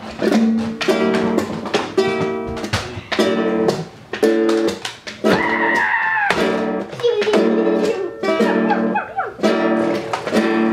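A guitar-like stringed instrument strummed in repeated chords, played live as the show's music. About halfway through, a child's high-pitched voice cries out over it, followed by more brief voice sounds.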